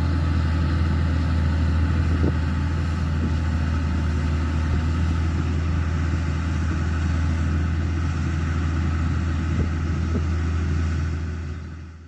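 Diesel engine of a Komatsu heavy machine running steadily with a deep, even drone, fading out near the end.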